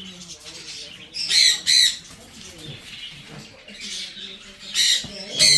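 Parrots squawking: two quick pairs of short, harsh screeches, one about a second and a half in and another near the end.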